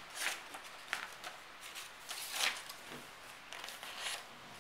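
A sheet of paper being folded, with its crease rubbed down by a fingernail: several short, dry scraping swipes.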